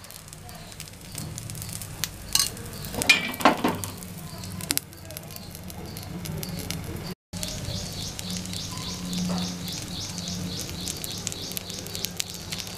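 Set dosa batter sizzling in ghee on a hot dosa tawa, with a glass lid clinking against the pan as it is set down about three seconds in. The sizzling then carries on steadily under the lid.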